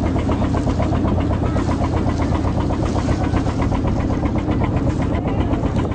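Small boat's engine running steadily under way, heard on board: a low drone with a fast, even knocking.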